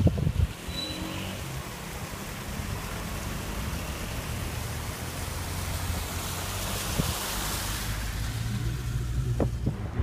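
Steady hiss of a small waterfall splashing down a rocky bank, over the low hum of a car engine. The hiss grows stronger about six to eight seconds in.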